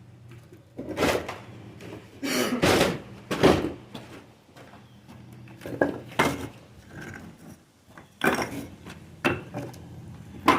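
Stone-masonry work: a trowel scraping mortar and stones knocking as they are set, in several separate short scrapes and clacks with pauses between them.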